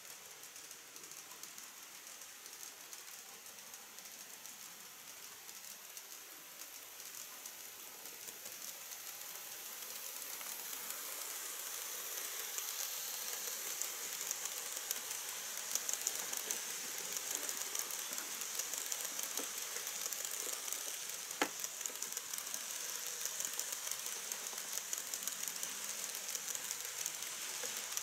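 N-scale KATO E26 series Cassiopeia model train rolling along sectional track, its many small metal wheels making a fine rattling hiss of rapid clicks. It grows louder over several seconds as the train comes close, with one sharp click about twenty seconds in.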